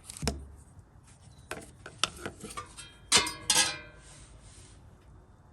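Scattered light metallic clinks and knocks of hard objects being handled, with a louder cluster of ringing clinks about three seconds in.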